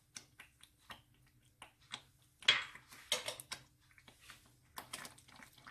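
A cooking spoon stirring thick, mashed pav bhaji in a pan, with light clicks and scrapes against the pan and two louder scrapes about halfway through.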